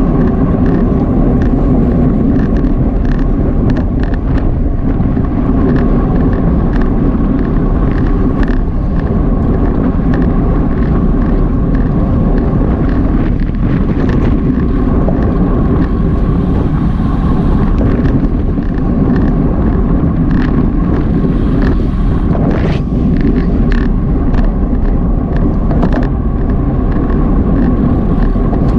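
Steady rush of wind and road noise on a bicycle-mounted action camera's microphone while riding at race speed, with scattered sharp ticks.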